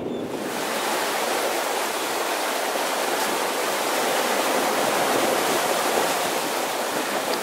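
Steady rushing of water along the hull of a sailing catamaran making about seven knots, starting suddenly just after the start.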